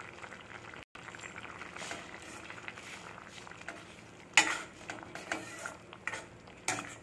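Brinjal gravy simmering in a stainless steel pan as tamarind extract is stirred in with a spoon, which knocks against the pan. There is one sharp knock about four seconds in, then a few lighter clinks.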